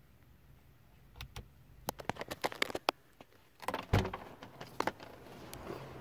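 A run of sharp clicks, then a clunk and rattle about four seconds in as the 2007 Toyota Corolla's front door is unlatched and swung open.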